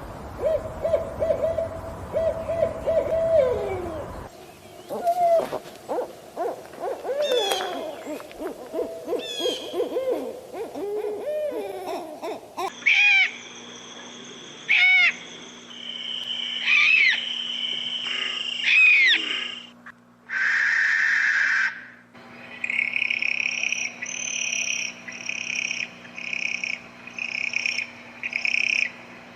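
Owl calls from several spliced recordings. First comes a held hooting tone that wavers and drops about four seconds in, then a run of shorter wavering hoots and trills. These are followed by sharp high calls that rise and fall, a brief harsh noisy burst about twenty seconds in, and at the end a steady series of high repeated calls, roughly one a second.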